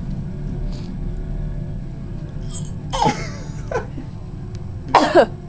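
Imitated coughs: short cough-like bursts, each falling in pitch, one about three seconds in with a smaller one just after, then two in quick succession near the end.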